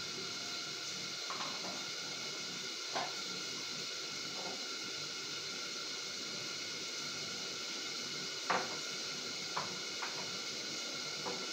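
Covered pan cooking on a lit gas burner: a steady hiss, with a few sharp ticks and pops from the pan, the loudest about eight and a half seconds in.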